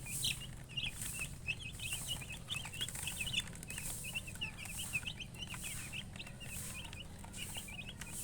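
A group of baby chicks peeping continuously, many short high-pitched cheeps overlapping one another, over a steady low hum.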